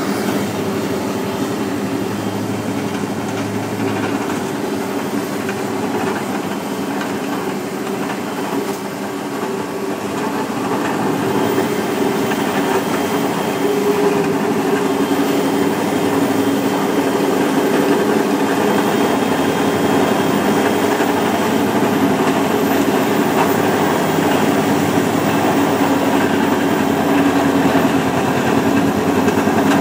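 Tractor engine running steadily under load while driving a tractor-mounted stone crusher over a stony farm track, with a constant dense rattle and grind of stone being crushed. It grows louder about ten seconds in.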